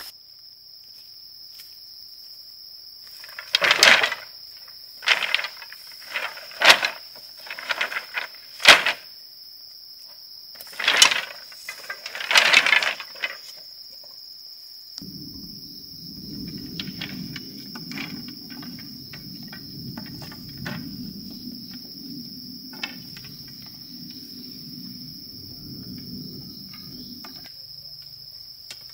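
Insects chirring in a steady, high, unbroken buzz. Over it come about eight loud, short, noisy sounds between about 4 and 13 seconds in, then a low, rough noise from about 15 seconds until near the end.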